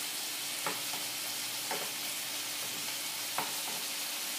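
Scallops sizzling in browned butter in a frying pan as they are turned over, with three light clicks of a spoon and fork against the pan.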